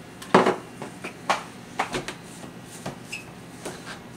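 A handful of sharp clicks and knocks from a salt shaker and a clear blender cup being handled on a kitchen counter, the loudest about half a second in, with a short high clink near three seconds.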